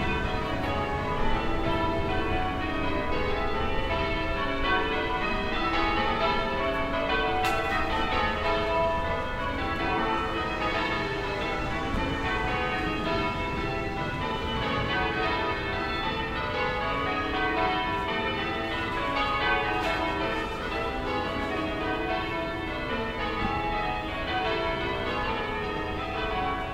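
Distant church bells ringing without a break, many bell strikes overlapping one another, over a low town rumble.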